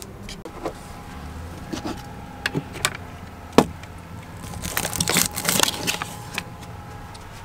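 Clicks and knocks of handling, the sharpest about three and a half seconds in, as a chest freezer is opened. A second or so of rustling and clatter follows as frozen packages are shifted and a plastic popsicle-mould tray is lifted out.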